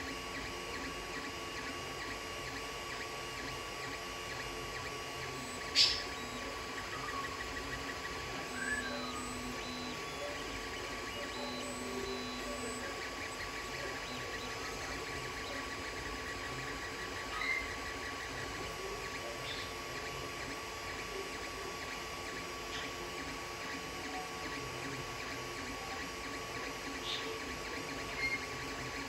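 Creality Ender 3 3D printer running a print: a steady hum of its cooling fans, with the stepper motors sounding short pitched tones and small glides as the print head moves. A sharp click about six seconds in.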